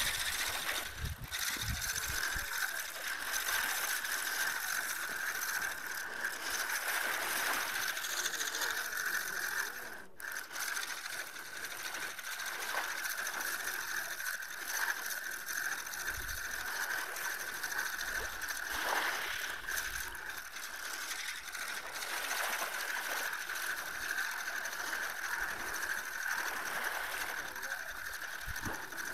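Spinning reel being cranked, its gears whirring and clicking steadily as line is wound in, with a short break about ten seconds in.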